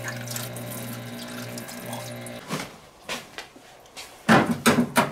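Parts washer running, its pump humming steadily and liquid pouring, until it shuts off about two and a half seconds in. A few sharp knocks follow near the end.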